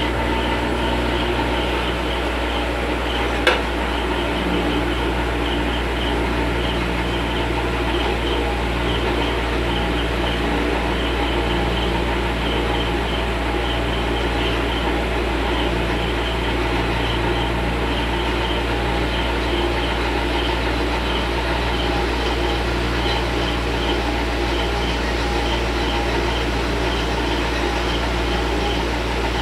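Steady low hum of a fan or electrical equipment, unchanging throughout, with a single sharp click about three and a half seconds in.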